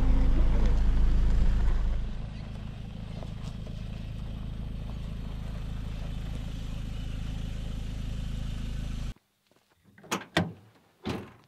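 Music fades out over the first two seconds. It leaves a vehicle running with a steady low drone, which cuts off abruptly about nine seconds in. A couple of short, sharp sounds follow near the end.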